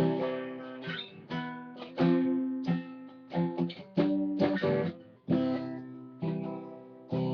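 Acoustic guitar strummed with no singing, about two chords a second in an uneven rhythm, each chord ringing and fading.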